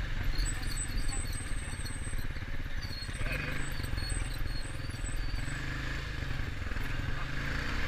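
Engine of a small off-road vehicle running steadily while it rides along a trail.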